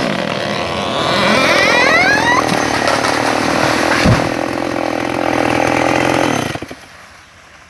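Chainsaw running as it cuts into a tree trunk, with a few short rising squeals about two seconds in. It cuts off sharply about six and a half seconds in.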